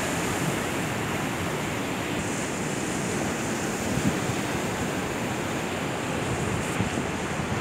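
Sea waves washing in and breaking over shoreline rocks, a steady rush of surf.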